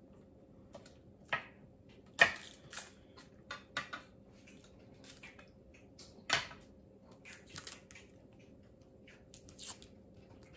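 Garlic cloves being trimmed with a small knife and peeled by hand over a wooden cutting board: scattered, irregular sharp clicks and taps, the loudest about two seconds in and about six seconds in.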